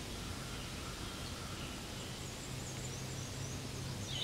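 Steady outdoor background noise with faint high chirping calls through the middle and a louder short chirp at the very end.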